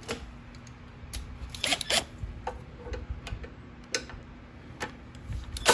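Scattered light metallic clicks and taps of a wrench working a half-inch nut loose on a small lawnmower engine's carburetor mounting.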